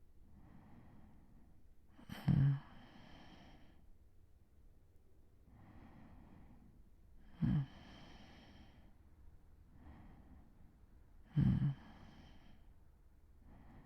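A man snoring as he sleeps: three short, low snores four to five seconds apart, each running into a breathy exhale, with softer breaths in between.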